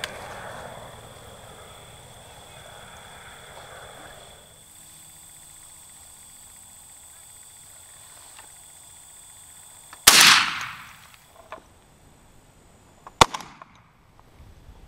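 Two shotgun blasts about three seconds apart. The first is the louder one, with a longer trailing echo; the second is a sharper, shorter crack.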